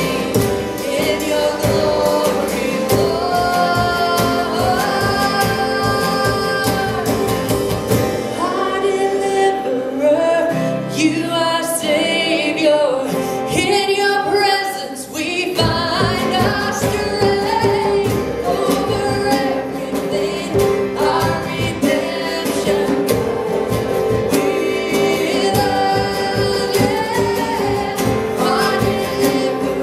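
Live acoustic worship song: a woman singing lead with male backing vocals over two strummed acoustic guitars and a djembe. About eight seconds in the drum drops back to a softer passage, and the full band comes back in about fifteen seconds in.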